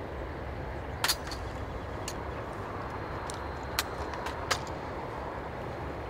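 Sharp clicks of a wooden-stocked rifle being handled, three times: once about a second in, the loudest, then twice close together past the middle. Under them runs a steady low outdoor rumble.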